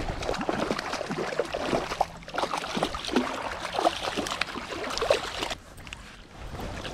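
Hooked small brook trout thrashing and splashing at the surface of shallow water as it is brought in. The irregular splashing stops abruptly near the end.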